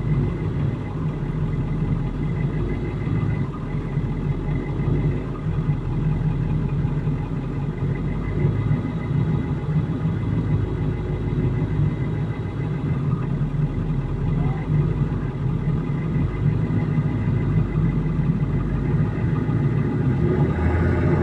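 A vehicle engine running steadily at a low, even rumble.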